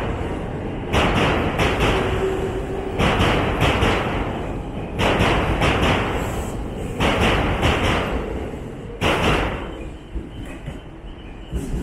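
An electric passenger train's wheels clattering over the track as it passes alongside the platform, over a steady low rumble: a cluster of knocks about every two seconds as each car's bogies go by, five times. The knocks stop near the end as the last car clears.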